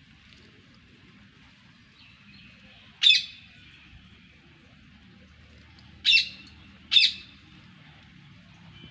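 A bird calling three times in short, sharp squawks, one about three seconds in and two close together near the end, over a faint steady high hiss of background.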